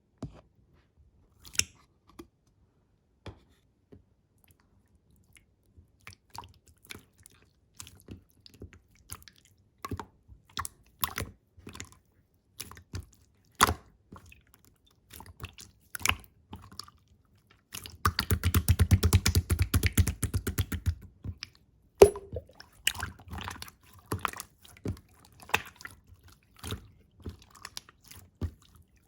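Clear slime being pressed and poked with the fingers, giving scattered sharp crackles and small bubble pops. About two thirds of the way in comes a quick run of rapid pops lasting about three seconds, followed by one louder snap.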